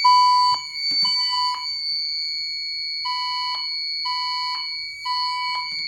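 Temporal-3 evacuation tone from a Fire-Lite ECC-50 voice evacuation panel through a System Sensor SPSW speaker strobe, sounding between repeats of the spoken fire message: half-second beeps in groups of three with about a second and a half of pause between groups. A steady high-pitched tone runs underneath.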